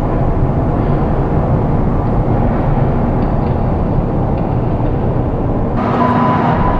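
Steady low rumble of outdoor background noise, with a brief broader hiss about six seconds in.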